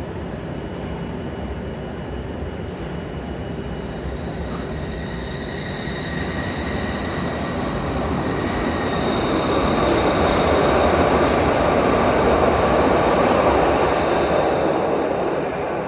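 Glasgow Subway train running underground, a steady rumble of wheels on track with faint high whines, growing louder towards the middle and easing off near the end.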